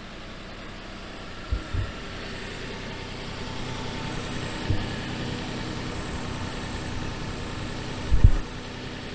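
2007 Nissan Xterra's V6 engine running steadily, likely at idle, with a few short dull low thumps, the loudest near the end. The owner suspects the leak-and-rattle noise comes from an exhaust leak on the passenger side.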